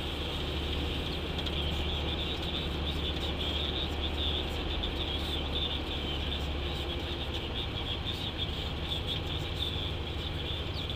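Cab noise of a Mercedes truck on the move: a steady low engine drone under road noise, with a high, fluttering hiss over it.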